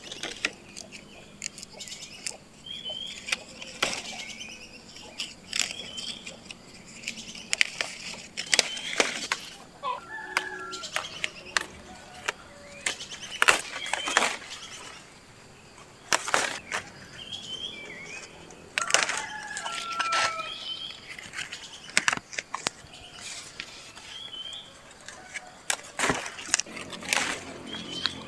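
Cashew leaves rustling and stalks snapping as young leaves are plucked by hand from the tree. It comes as a string of irregular sharp crackles and swishes, some much louder than others.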